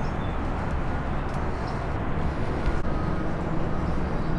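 Steady low rumble of distant traffic, with a few faint short bird chirps over it.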